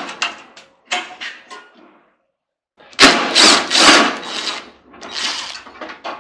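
Clattering and scraping of metal microwave parts being handled and worked with tools. A few fading knocks come first, then after a short pause a louder run of irregular knocks and scrapes.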